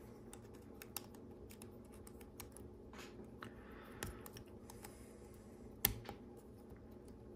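Plastic LEGO Technic pieces clicking and tapping faintly as they are handled and pressed together, with a sharper snap about six seconds in.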